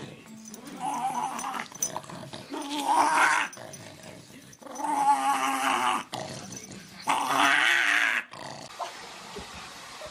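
Small black dog growling in play while being rubbed and wrestled on its back: four growls, each about a second long, with short pauses between them.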